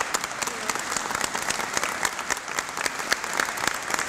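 A small crowd applauding, many hands clapping steadily.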